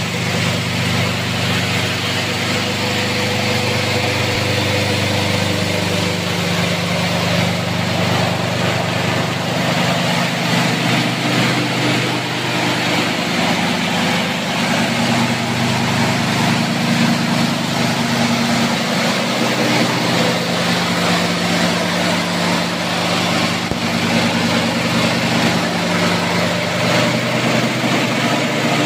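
Vibrating coffee-bean sorting screen running: its electric motor and shaking stainless-steel sieve deck give a steady hum under a continuous dense rattle of coffee beans moving over the mesh.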